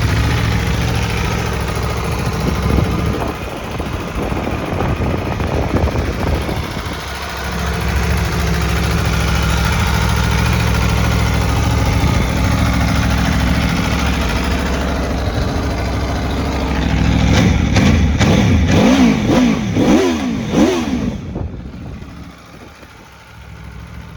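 Aprilia Tuono V4 motorcycle's V4 engine idling, with a few blips of throttle a few seconds in and a series of quick revs near the end, after which it falls much quieter.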